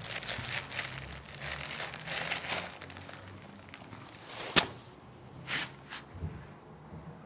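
A thin plastic bag crinkling and rustling as a cat plays in it, busiest over the first three seconds. A sharp tap about four and a half seconds in, then two short rustles.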